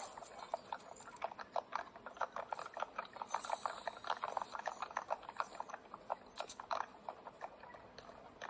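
A person making rapid clicking mouth noises, about five sharp clicks a second, thinning out near the end.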